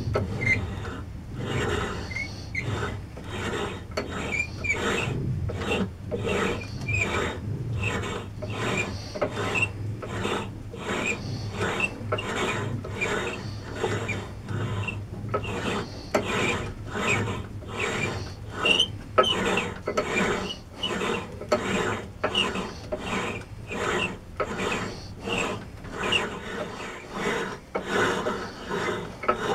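Reamer cutting the bore of a lathe change gear out to finished size, scraping in short strokes repeated about twice a second.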